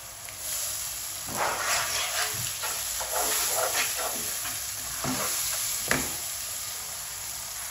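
Water poured into a pan of hot oil and fried onion-spice masala sizzles. Then a wooden spoon stirs and scrapes through the masala in a nonstick pan in a string of short strokes, with a sharp tap of the spoon about six seconds in.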